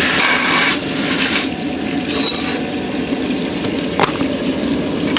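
Water boiling steadily in a portable electric cooking pot, a constant bubbling rush. A few clicks and rattles of a plastic food container being handled sound over it, the sharpest about four seconds in.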